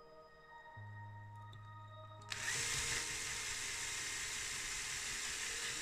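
Cordless drill starting about two seconds in and then running at a steady speed as its bit works into a small diecast toy van.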